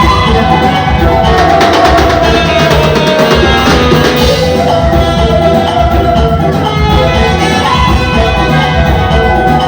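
Loud amplified band music: a steady drum beat under a sustained melodic lead line.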